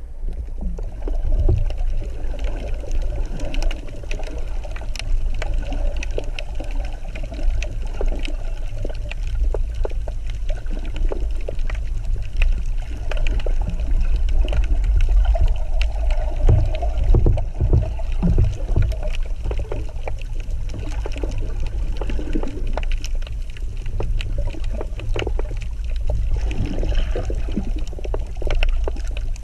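Underwater ambience picked up by a submerged camera: a steady low rumble of moving water with many small scattered clicks and crackles.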